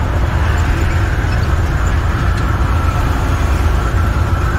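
Steady drone of an International semi truck's MaxxForce 13 diesel engine cruising at highway speed, heard inside the cab along with tyre and road noise.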